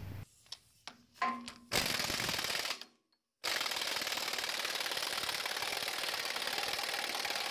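Impact wrench hammering in two runs, a short one of about a second and then a steady one of about four seconds, running a castle nut onto the radius-arm mounting bolt.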